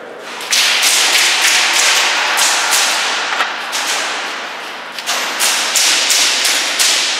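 Airsoft guns firing in rapid volleys, sharp cracks and BB hits in quick succession echoing around a large warehouse arena. The firing comes in two long stretches, starting about half a second in and again near the middle.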